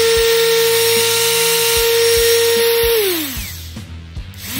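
Electric palm sander running with no load, a steady hum; about three seconds in it is switched off and winds down with falling pitch, then near the end it is switched on again and spins up. Its sound and vibration are back to normal after the repair.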